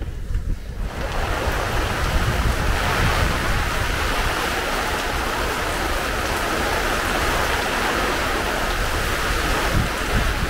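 Wind buffeting the microphone: a steady low rumble with a hiss that sets in about a second in and holds evenly.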